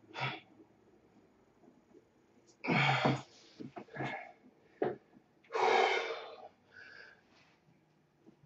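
A man's heavy, forceful breathing from exertion during a workout: two loud exhales about three and six seconds in, with shorter, smaller breaths between.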